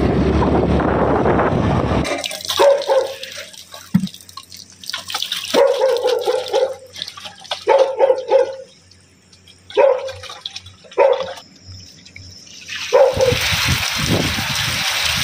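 A dog barking over and over, about seven calls spaced a second or two apart. A loud rushing noise cuts off about two seconds in.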